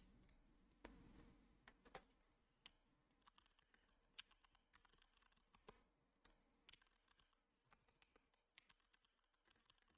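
Faint computer keyboard typing: scattered single keystroke clicks, irregular, with short pauses between them.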